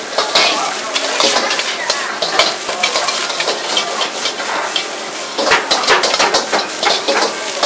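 Fried rice being stir-fried in a wok: a steady sizzle with the steel ladle repeatedly scraping and clacking against the wok as the rice is scooped and tossed.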